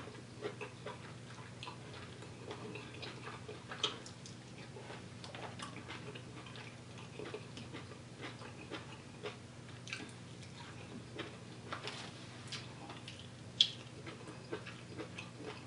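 Close-up eating sounds of someone eating by hand: chewing and lip smacks with scattered small wet clicks as soft fufu and vegetable soup are worked with the fingers, and one sharper click a little before the end. A faint steady low hum runs underneath.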